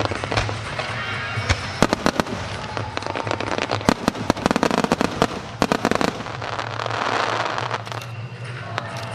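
Aerial firework shells bursting overhead: sharp bangs arriving in rapid clusters, several in quick succession about a second and a half in, around four seconds and again around six seconds.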